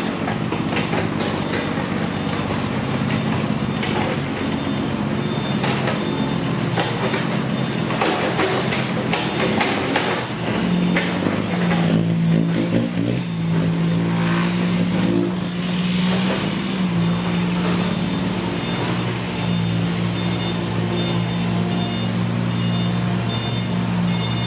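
Diesel engines of loaded six-wheel dump trucks running at low speed on a rutted dirt track, with irregular knocks and rattles in the first half. About ten seconds in, a steady engine drone grows louder.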